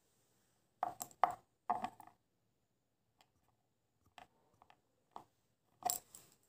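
Handling noise close to the microphone: a run of sharp clicks and knocks of small hard objects being moved, loudest about a second in, with fainter ticks later and one more sharp knock near the end.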